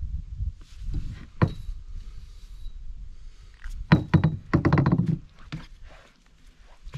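Knocks and thunks on a canoe being worked in against a shoreline tree, with rustling. There is a sharp knock about a second and a half in and a cluster of heavier thunks about four to five seconds in.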